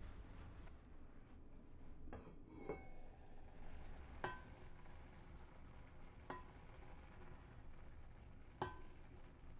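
Wooden spoon stirring cooked azuki beans in an enamelled cast-iron pot, knocking against the pot about five times, the later knocks with a short metallic ring.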